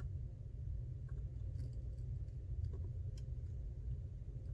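Faint, scattered small clicks and ticks of tools and tiny parts being handled on an opened iPhone during reassembly, over a steady low hum.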